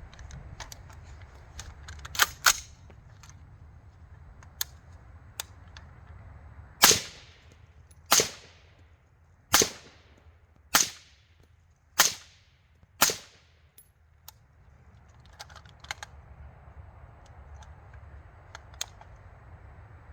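Suppressed rifle fired through a Rex Silentium MG10 .338 suppressor: six sharp shots about a second apart, with two fainter cracks a few seconds before them.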